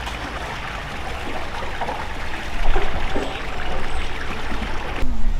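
Running, trickling water, louder from about two and a half seconds in, cutting off suddenly near the end.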